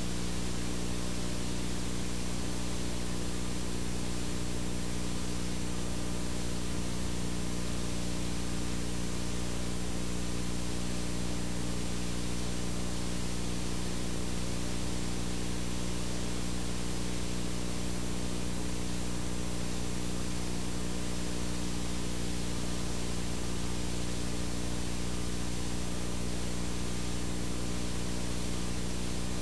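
Steady static hiss with a low steady hum underneath, from a blank stretch of videotape playing back after the recording has ended.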